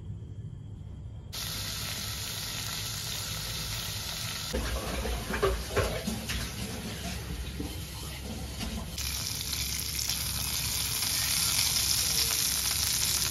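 Tap water running steadily over vegetables as they are washed, with knocking and clatter from handling them a few seconds in. The flow starts abruptly about a second in and cuts off abruptly at the end.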